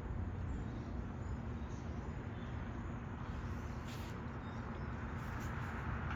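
Steady low engine rumble, as of a vehicle idling, with a light hiss and a couple of faint clicks about two-thirds of the way through.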